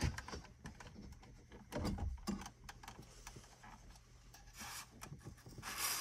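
A factory car radio's metal and plastic case being wiggled and slid out of its dash opening: scattered light clicks and knocks of plastic on metal, with two brief scrapes in the second half as the case slides out.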